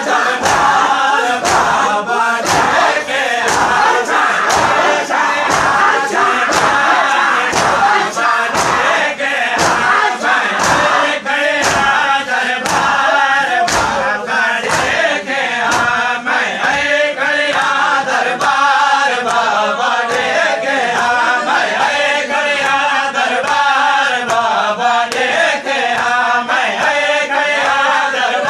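Male voices singing a noha, a Shia lament, with a crowd of men chanting along over the steady beat of matam: many hands striking chests in unison, a little under twice a second.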